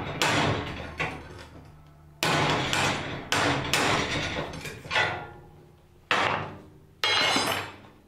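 Hand hammer striking the wrought iron scrollwork of an old gate, about nine irregularly spaced blows, each dying away in a short ring.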